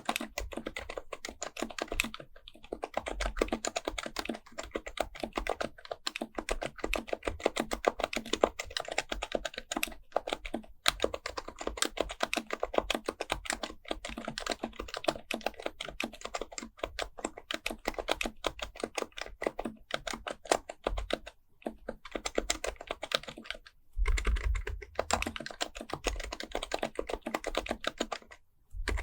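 Fast, continuous typing on an HHKB Pro Type-S keyboard with Topre capacitive switches, here fitted with BKE-9400A parts: a rapid stream of soft key strokes broken by a few short pauses.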